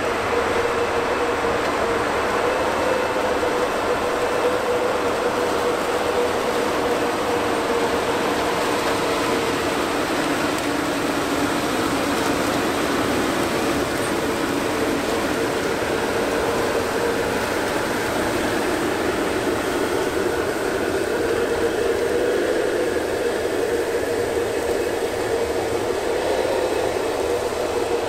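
600 hp Challenger MT875E track tractor working under load as it pulls a Wishek 862NT disc through soil and tall, thick weeds: a steady drone with a held, slightly wavering mid-pitched whine.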